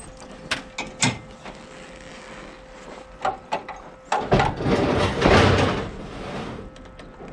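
Metal knocks and clicks from a flatbed car trailer's tongue and hitch being worked by hand, then a louder rough rattling scrape lasting about two seconds.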